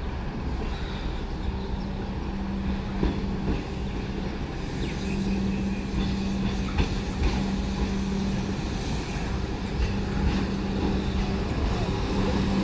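Comeng electric suburban train arriving slowly at the platform. A low hum cuts in and out over the rumble of its approach, and the sound grows louder as the train nears.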